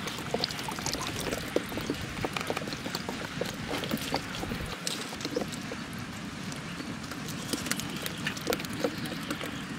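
Water pouring and dripping out of banana-trunk fish traps as they are lifted from a canal, with scattered light taps and clicks as the traps are handled.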